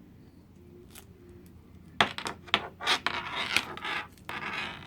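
Velcro hook-and-loop strap being peeled open: a rasping rip in several short pulls, starting sharply about two seconds in after a little faint handling.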